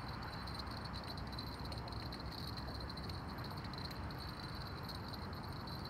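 Steady night-time outdoor city ambience: a low rumble of distant traffic under a continuous high, pulsing chirring of insects.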